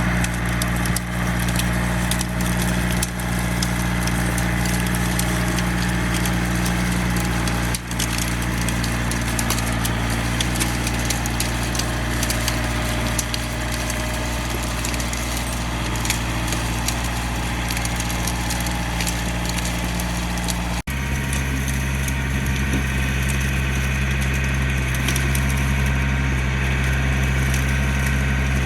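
John Deere 4700 compact tractor's diesel engine running steadily, with repeated cracking and snapping of knotweed stalks being torn up by the 448 backhoe. The engine note shifts abruptly about two-thirds of the way through.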